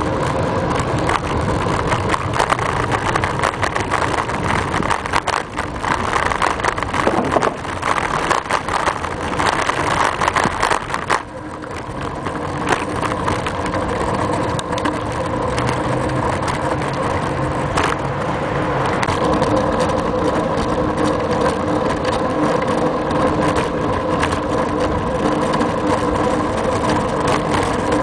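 Continuous riding noise picked up by a camera clamped to a bicycle: tyres rolling on pavement, wind on the microphone and rattling through the mount, easing briefly about eleven seconds in.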